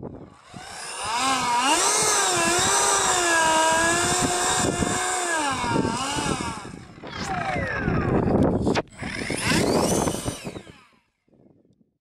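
Electric ducted fan of a Durafly de Havilland Vampire model jet whining, its pitch wavering up and down with the throttle. About seven seconds in the whine drops in pitch as the jet passes, then it rises again and cuts off shortly before the end.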